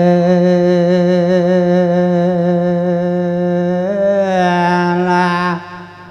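A single singing voice holding one long drawn-out vowel with a slight vibrato: the ornamental melisma of Isan thet lae sermon chanting. The pitch lifts slightly about four seconds in, and the note breaks off shortly before the end.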